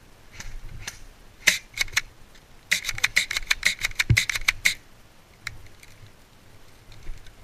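Airsoft gunfire: a few single sharp clicking shots, then a rapid burst of about eight shots a second lasting about two seconds, with a dull thump partway through.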